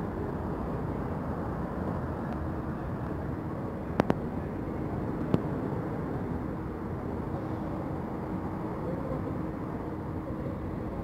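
Steady rumble of an Alstom-built NS-16 metro train running at an underground station platform, with a faint steady hum coming in about four seconds in. Two sharp clicks come close together about four seconds in, and a third follows a little over a second later.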